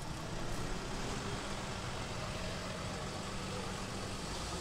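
An engine running steadily at low revs, a low even hum over street noise.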